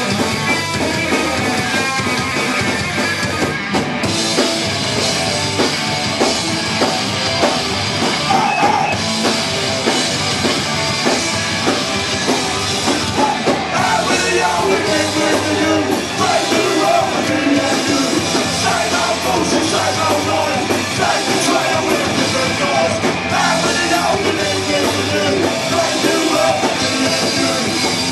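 Punk rock band playing live: electric guitars and drum kit with a singer's vocals over them.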